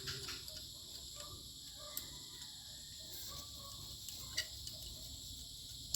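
Steady high-pitched chirring of crickets or similar insects in the background, with two faint clicks, one about two seconds in and one near the end.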